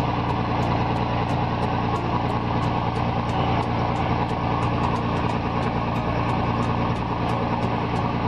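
Diesel engine of a heavily loaded flatbed truck running steadily under load at low speed, a constant low drone.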